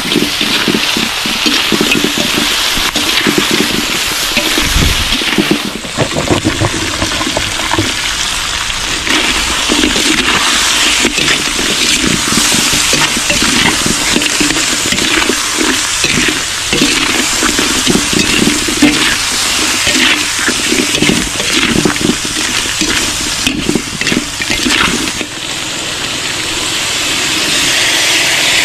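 Blue crabs sizzling as they are sautéed in a large wok over a wood fire, with a metal spatula and ladle scraping and clattering against the pan. Near the end the sizzle gives way to a steady pour of coconut milk into the wok.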